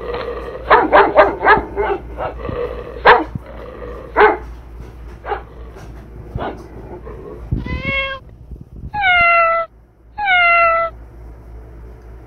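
Sharp knocks and clicks for the first few seconds, then a cat meowing three times, each meow under a second long, the last two falling in pitch at the end.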